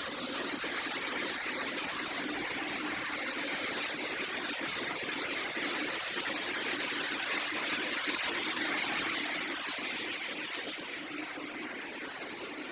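Steady rush of flowing water and manure slurry at a screw-press manure dewatering machine, easing off slightly near the end.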